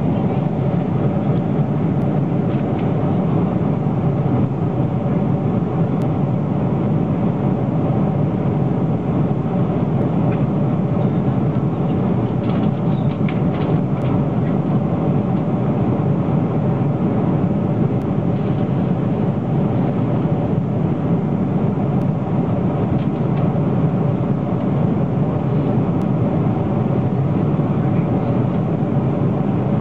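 Steady drone of an airliner cabin in flight, the engines and rushing air making an even, unbroken roar.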